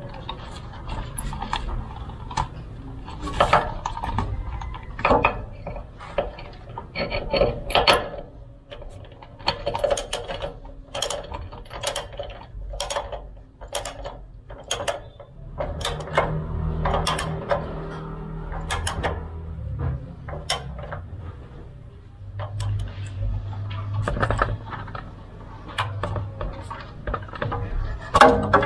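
Hand socket ratchet clicking in short strokes as the bolt of a rubber bump stop is driven into a rear coil-spring seat, mixed with knocks of the tool and the rubber against the spring.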